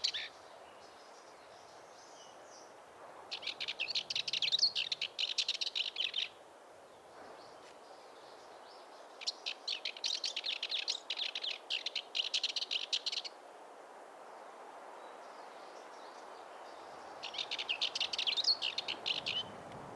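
Male Cyprus warbler singing: three bouts of a fast, scratchy, rattling song, a rapid string of notes. The bouts come about three seconds in, about nine seconds in and about seventeen seconds in, each lasting two to four seconds.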